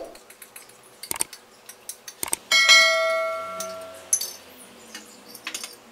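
A few clinks of a spoon against a glass bowl, then about halfway through a click and a bright bell chime that rings and fades over about a second and a half: the sound effect of a YouTube subscribe-button animation.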